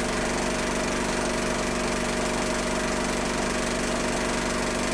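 Film projector running: a steady motor hum with several constant tones over an even hiss.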